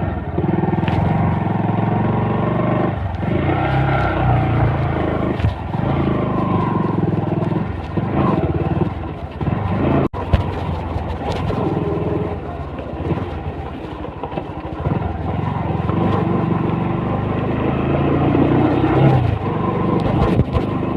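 Bajaj Pulsar NS125's single-cylinder engine running through its stock exhaust, with a few rises and falls in pitch as the throttle is opened and closed. The sound drops out for an instant about halfway through.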